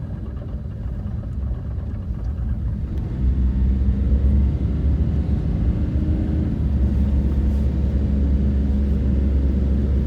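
A heavy engine running with a deep, steady rumble that grows louder about three seconds in and holds.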